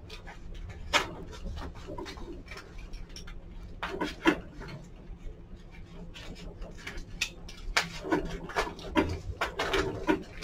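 Scissors cutting open a wrapped package: scattered snips, clicks and crinkling, with a few sharper clicks and a busier patch near the end.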